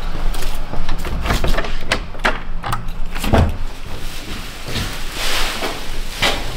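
Footsteps and a run of knocks and clatter, then plastic film rustling as a plastic-wrapped car roof panel is lifted and handled.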